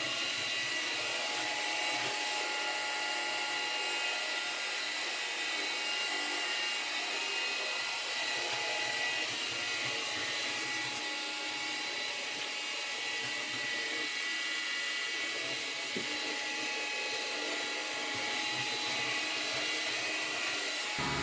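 Samsung Navibot SR8828 robot vacuum cleaner running: a steady high-pitched motor whine over an even rushing hiss.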